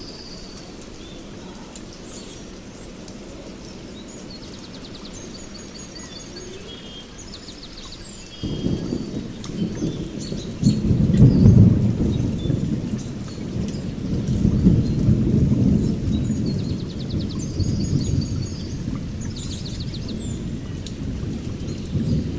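A steady hiss with birds chirping throughout, and a low rumble that starts suddenly about eight seconds in, then swells and fades in waves like rolling thunder.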